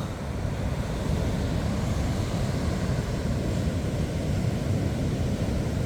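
Atlantic Ocean surf breaking on the beach, mixed with wind on the microphone: a steady low rumble.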